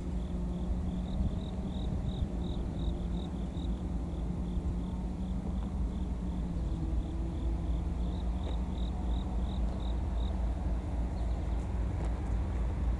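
Steady low rumble with an insect chirping in quick, even pulses, about four a second. The chirping pauses briefly a little after the middle and stops about ten seconds in.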